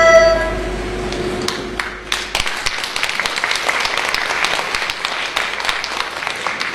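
The last held note of the musical accompaniment fades out, then audience applause begins with a few scattered claps and swells into steady clapping about two seconds in.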